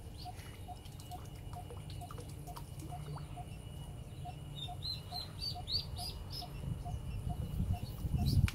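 Duckling on a fishing line peeping, a quick run of short high calls clustered in the middle. A faint even ticking about three times a second runs underneath, and a low rumble grows louder near the end.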